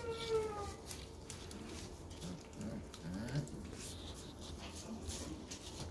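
Puppies whimpering: one puppy's whine falls away in the first second, then a few faint low grunts come about three seconds in, over soft scratching and rustling of paws in wood shavings on a plastic sheet.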